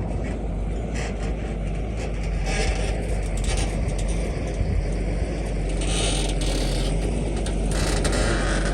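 Excavator's diesel engine running steadily under work, with irregular spells of higher rushing noise every second or two.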